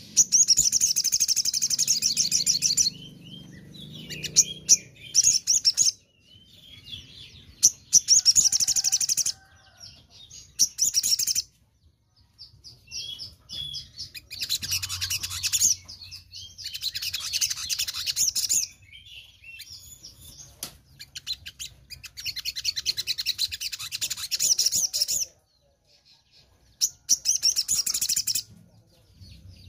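Caged sogon (sunbird) in full song: bouts of rapid, very high twittering, about eight of them with short pauses between.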